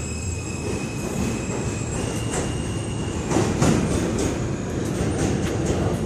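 New York City Subway L train pulling out of the station, its steel wheels rumbling on the rails with a thin high wheel squeal over the first couple of seconds. Sharp irregular clicks from the rail joints come through, loudest about three and a half seconds in.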